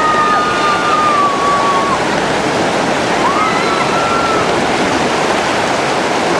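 Fast river rapids rushing: a steady, loud wash of whitewater, with voices calling out over it in the first two seconds and again around the middle.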